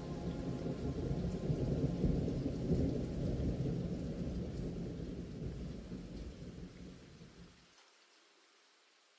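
A deep rumble over a steady hiss, swelling about two to three seconds in and then slowly dying away.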